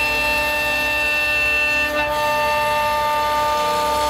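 CNC router spindle whining steadily while a 12 mm three-fluted end mill makes a roughing cut through wood, a high whine of several steady tones whose mix shifts slightly about halfway through.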